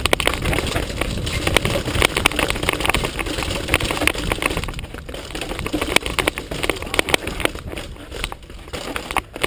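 Mountain bike rolling fast down a rough trail: tyres crunching over rock and dirt, with the bike rattling in a stream of sharp clicks and knocks over a low rumble.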